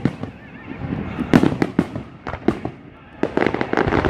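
Aerial fireworks shells bursting one after another in a public display, several sharp bangs, then a dense run of rapid crackling pops about three seconds in.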